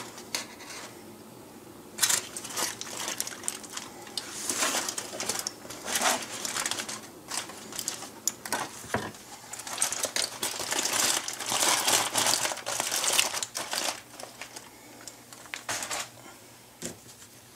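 Aluminium foil crinkling and rustling as it is handled and pulled out from under a cooked brisket, in irregular crackly spells that die down near the end.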